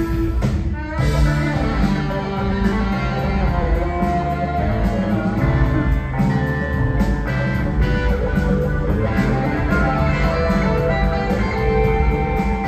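Live rock band playing a guitar-led passage: electric guitars over drums, bass and keyboards, heard from the audience in a concert hall.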